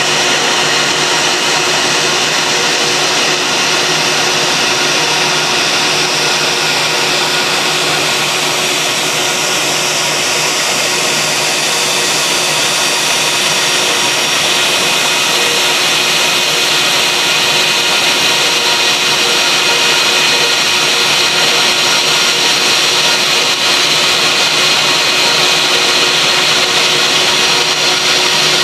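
Twin rear-mounted turbofans of a Bombardier Global Express (BD-700-1A10) on final approach, touchdown and landing roll: a loud, steady rushing roar with high engine whines, one of which slides down in pitch about a third of the way through.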